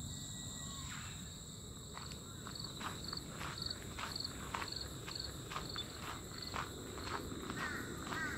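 Insects, probably crickets, keep up a steady high-pitched trill. From about two seconds in, footsteps fall at roughly two a second. Near the end a bird gives a few short repeated calls.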